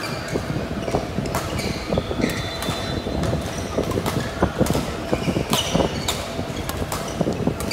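Badminton play on an indoor court: sharp racket hits on the shuttlecock and footsteps, mixed with short high squeaks of shoes on the court floor.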